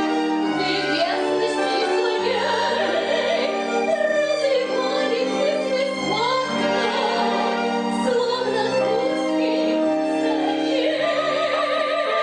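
Operetta duet sung in full operatic voice with vibrato over instrumental accompaniment with held chords and a changing bass line.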